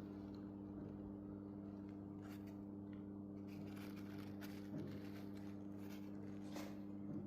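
Audi TFSI engine idling with a steady, even hum, and a few faint ticks.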